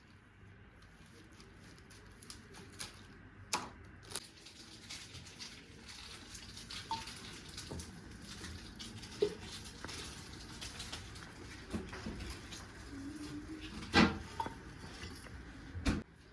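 Scattered light knocks and clinks of objects being handled over a low steady hiss, with a sharper knock about fourteen seconds in and another near the end.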